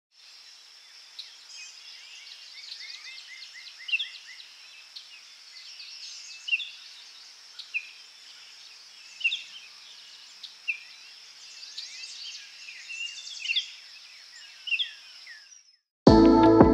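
Wild birds chirping and calling, with a rapid trill of repeated notes a few seconds in and sharp single calls every second or two, over a steady high hiss. Loud music cuts in suddenly near the end.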